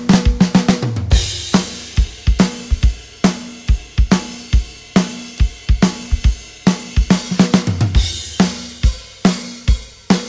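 Background music: a steady drum-kit beat with bass drum, snare and cymbals.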